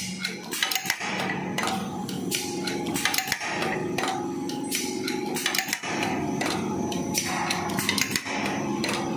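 Paper cake-cup forming machine running: quick metallic clicking and clatter from its forming mechanism over a steady machine hum. The cycle repeats about every two and a half seconds.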